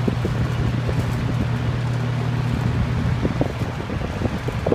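Robenson box fan with plastic blades running on high speed, very loud: a steady low hum over a rush of air. Irregular light knocks come in over the second half, from a fan the owner calls very unbalanced.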